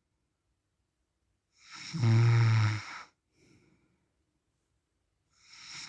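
A man snoring in his sleep. There is one loud snore with a steady low pitch, about two seconds in and lasting about a second, then a faint breath, and the next breath starts to build near the end.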